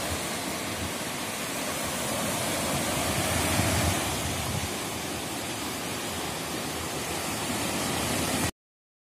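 Steady surf of small waves washing onto a sand beach, a continuous rushing noise that cuts off suddenly near the end.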